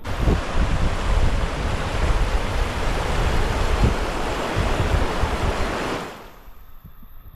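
Fast, shallow river rushing over rocks, a loud steady noise, with wind buffeting the microphone. It fades out about six seconds in.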